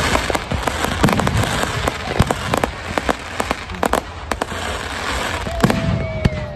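Fireworks going off: rapid sharp bangs and cracks over continuous crackling. A brief, slightly falling whistling tone sounds near the end.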